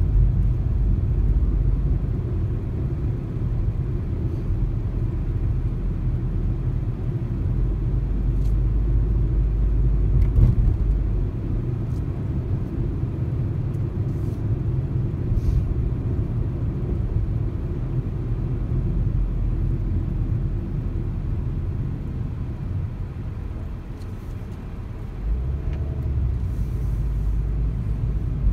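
A car driving along the road: steady low rumble of road and tyre noise with the engine underneath.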